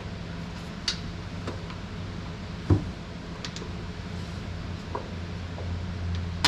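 Scattered light clicks and taps as a stubborn airline fitting on a semi's cab air bag is worked at by hand, with one sharper knock a little before halfway, over a steady low hum.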